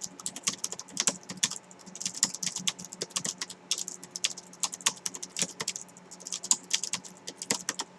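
Typing on an i-Rocks 6570 scissor-switch keyboard: a fairly quiet, quick, irregular patter of key clicks.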